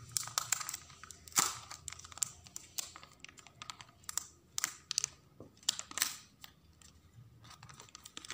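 Protective plastic film being peeled off a new smartphone's back and screen: irregular crackles and crinkles of the thin plastic, the loudest a sharp crackle about one and a half seconds in.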